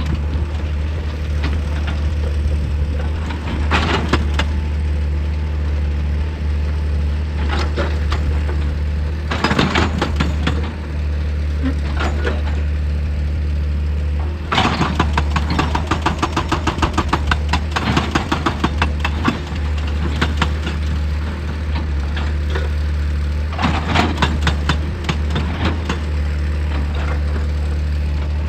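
Heavy excavator's diesel engine running steadily, with several stretches of rapid rattling knocks as rock is broken; the longest lasts about five seconds, in the middle.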